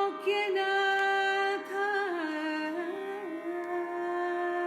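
Carnatic devotional singing: a woman's voice holds a long sung vowel, ornamented with sliding pitch bends, stepping down to a lower note about two seconds in, over a steady drone.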